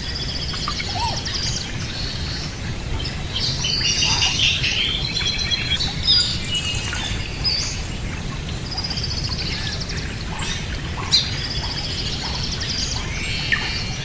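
Small pet birds chirping and trilling in quick, high calls, again and again, over a steady low hum.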